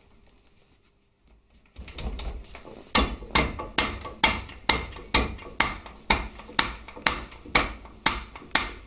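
Steady hammer blows on metal, about a dozen sharp taps a little over two a second, starting about three seconds in after some handling noise: driving the swing arm pivot shaft through on a Harley-Davidson Twin Cam frame.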